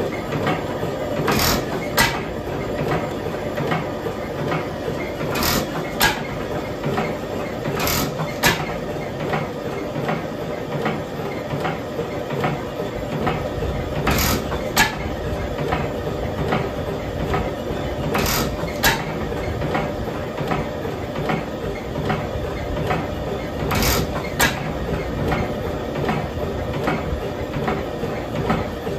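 Nayler hot-tube oil engine running, its inlet valve seats repaired and exhaust valve clearances freshly set: a steady mechanical clatter, with a pair of sharp clacks about half a second apart every few seconds at uneven intervals.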